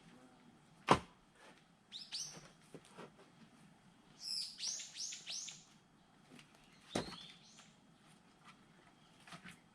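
Two sharp strikes of an axe splitting firewood, about six seconds apart, the first the louder. Between them a bird calls in short high chirps, most clearly a quick run of four or five.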